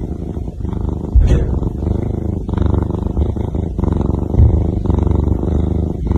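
Domestic cat purring loudly right at the microphone, in repeated breath cycles about a second long each. A short bump is heard about a second in.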